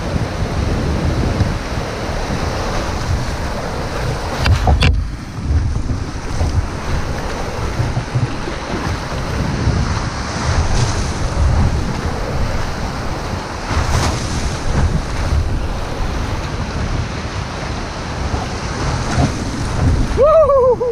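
Breaking surf and foaming whitewater washing around the kayak, with heavy wind buffeting on the microphone. A louder splash hits about five seconds in.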